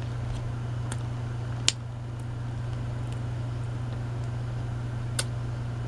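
A steady low hum with a few soft clicks, the sharpest a little under two seconds in.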